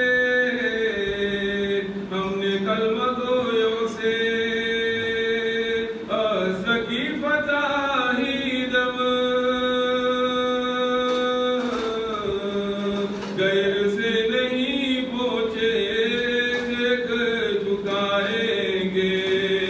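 A man's solo voice chanting a munajat qasida, a devotional supplication poem, in long held notes that bend from one pitch to the next, with short breaks between phrases.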